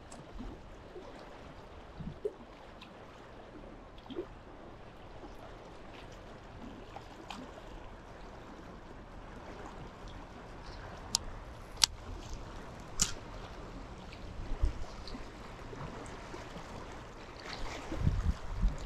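Small lake waves lapping and trickling at the shore, with a few short sharp clicks around the middle and wind buffeting the microphone near the end.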